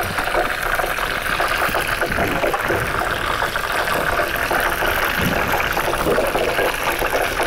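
Water at a rolling boil in a frying pan, bubbling and hissing steadily around spaghetti and sausage pieces. A fork stirs and lifts the spaghetti partway through.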